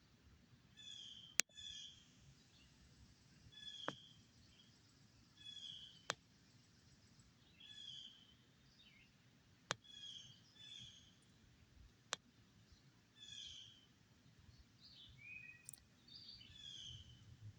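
A songbird singing faint, short high phrases of quick descending notes, repeated about every two seconds. Half a dozen sharp clicks are scattered among them and are the loudest sounds.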